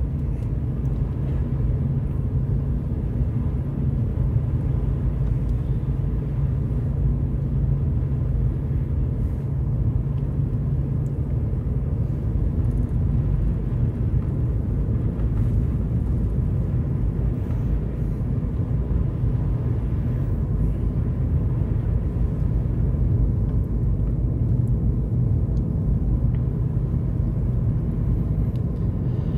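Steady low rumble of a vehicle driving on a snow-covered road, heard from inside the cabin: engine and tyre noise with no distinct events.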